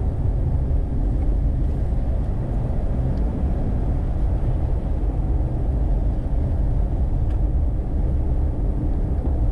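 Steady low rumble of a vehicle driving on paved road, engine and tyre noise heard from inside the cab.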